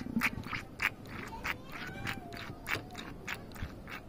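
Irregular sharp metal clicks and scrapes, about three a second, from work on a Yamaha motorcycle's front brake master cylinder, its reservoir drained of fluid. A faint wavering whistle runs through the middle.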